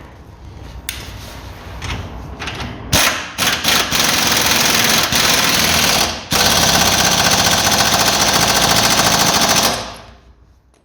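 Pneumatic wrench on a 30 mm socket hammering the new rear wheel hub nut tight: a few short bursts, then two long runs of rapid hammering, stopping near the end.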